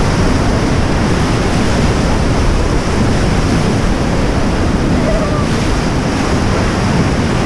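Whitewater rapids churning around an inflatable raft: a loud, steady rush of turbulent river water.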